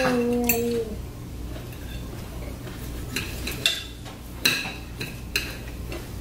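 Knife and fork clinking and scraping on dinner plates as meat is cut, with sharp clinks scattered through. A short held hum of a voice on one note in the first second.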